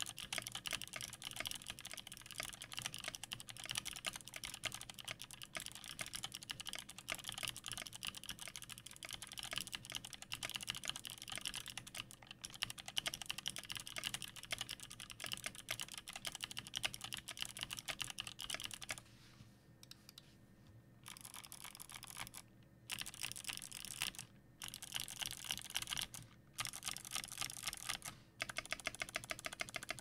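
Fast typing on a 60% custom mechanical keyboard with lubed Kailh Speed Bronze clicky switches in an aluminium Tofu case: a dense clatter of keystrokes. The typing stops for about two seconds around two-thirds of the way through, then resumes in short runs with brief breaks.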